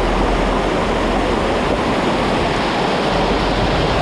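Rushing water of a waterfall cascade, a loud, steady wash of noise with no breaks.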